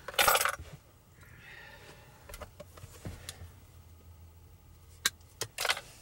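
Small metal parts clinking and rattling as they are handled: a short jangle right at the start, a few light clicks through the middle, and another brief rattle near the end.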